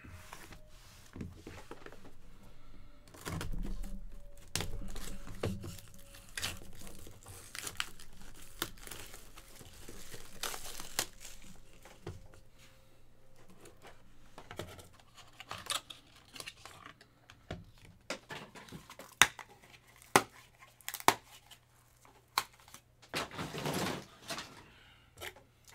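Shrink-wrapped cardboard trading-card hobby boxes being handled, slid and set down on a table: plastic wrap crinkling and rustling, with sharp clicks and knocks in the second half.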